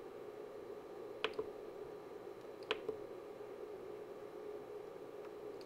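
Front-panel buttons of a Rigol DS1104Z-S Plus oscilloscope being pressed: three sharp clicks, each with a softer click just after, over a steady faint hum.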